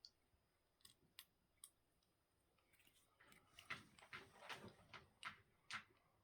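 Faint clicks and taps: a few single clicks, then from about halfway a quicker run of them, two or three a second.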